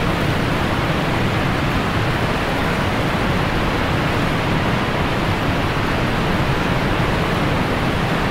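Helmcken Falls, a large waterfall, making a steady, unbroken rush of falling water.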